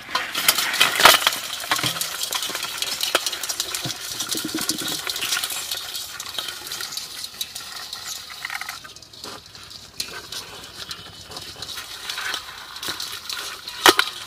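Live paddy-field crabs tipped from a plastic bucket into an aluminium pot, then scrabbling about in it, their legs and claws clicking and scratching on the metal. The clatter is loudest about a second in as they land, with a sharp knock near the end.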